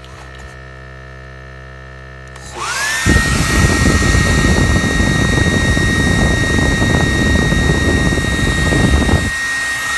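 A small electric motor spins up with a rising whine about two and a half seconds in, then runs steadily with a loud rush of air. A heavy low rumble cuts off about a second before the end.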